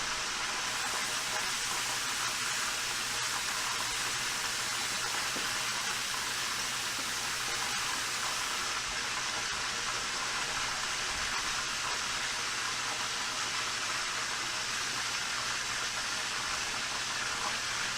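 Water running steadily from a kitchen tap into a cooking pot, a constant rush of water.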